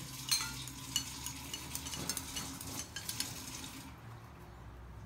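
Small clicks and crackles of a child's fingers picking at food on a small plastic plate. They are busy for the first three seconds or so and then thin out, over a faint steady low hum.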